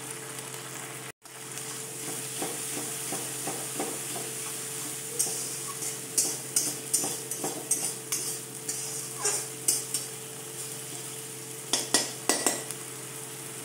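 Ground spices (chilli and turmeric) sizzling in hot mustard oil and ghee in a metal kadai while a metal spatula stirs them, scraping and tapping against the pan. The sizzle cuts out briefly about a second in, and the spatula strokes are most frequent in the second half.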